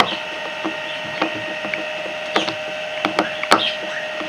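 Irregular light clicks and taps of a utensil against a container as slime ingredients are stirred together, a few closely spaced past the middle, over a steady background hum.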